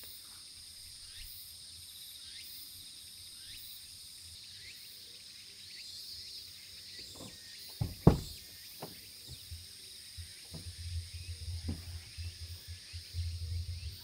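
Insects chirring steadily, with one loud clunk about eight seconds in as a van's front door is unlatched and opened. Uneven low bumping follows in the last few seconds.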